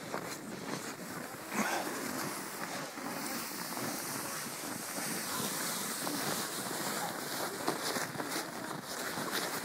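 Footsteps crunching in snow over a steady rushing noise.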